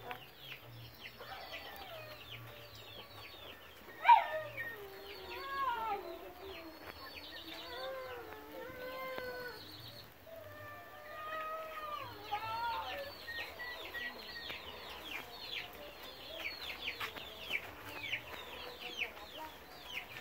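Chickens clucking in a farmyard, with a loud crowing call about four seconds in and more pitched calls around eight and twelve seconds, over constant high, falling chirps from small birds.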